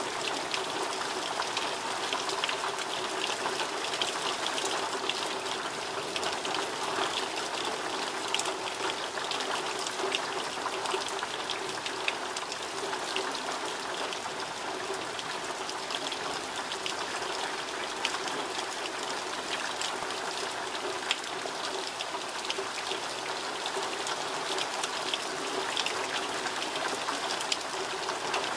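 Heavy summer rain falling steadily, a constant hiss with many close drops ticking through it.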